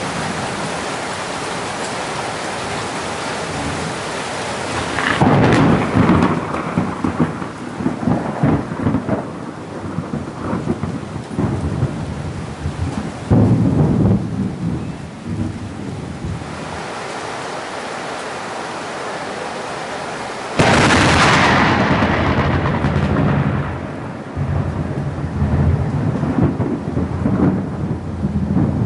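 Heavy tropical rain falling steadily, with thunder from close lightning strikes. Loud crashes come about five seconds in and again around thirteen seconds. A sharp, sudden crack a little after twenty seconds is the loudest, and it rumbles on for several seconds.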